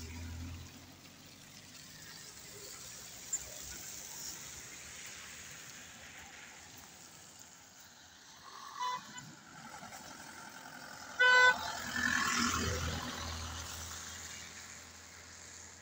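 A vehicle horn toots twice on the road, a short note about nine seconds in and a louder one two seconds later, followed by the rush of a vehicle driving past.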